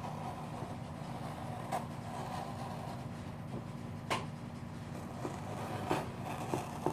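Fingers picking at the duct tape sealing a parcel to find its end: a few faint clicks and scratches, the sharpest about four seconds in, over a steady low hum.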